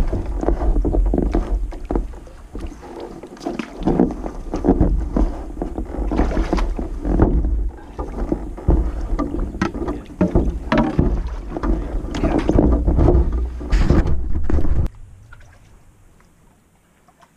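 A canoe knocking and scraping against shoreline rocks as a paddler climbs out, with many irregular knocks over a deep rumble. The clatter stops abruptly about fifteen seconds in.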